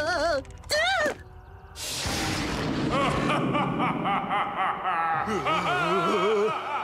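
A cartoon ghost's voice shouting, then a sudden whoosh-like burst of noise and a wavering, warbling ghostly laugh over music.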